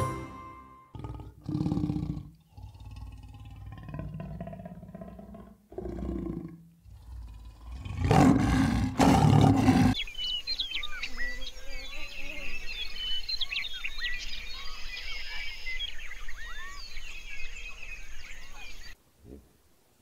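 A series of deep animal roars, each one to two seconds long, the loudest about eight to ten seconds in. Then a steady chorus of many small, quick bird-like chirps over a constant high hiss, cutting off about a second before the end.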